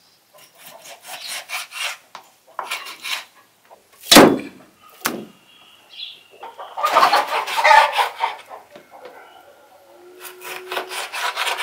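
Large kitchen knife sawing and chopping through raw beef on a wooden cutting board: clusters of short strokes with the blade knocking on the board, and one loud thump about four seconds in.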